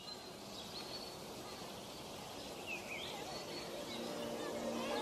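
Outdoor park ambience: a steady hiss with small birds chirping now and then. Music fades in near the end.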